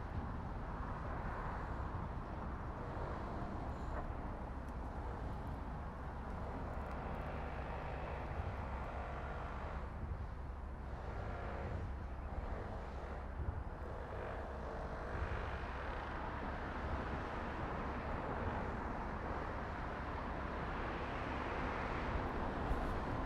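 Steady road and wind noise from riding along a road, with a low rumble of wind on the microphone.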